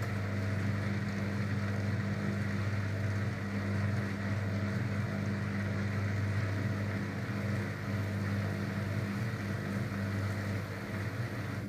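Daewoo DWD-FT1013 front-loading washing machine running steadily with a low, even hum, cutting off abruptly right at the end.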